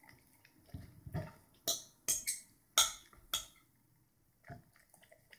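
Fork and knife clinking and scraping on a dinner plate: a string of about eight short, sharp strokes, most of them in the first three and a half seconds.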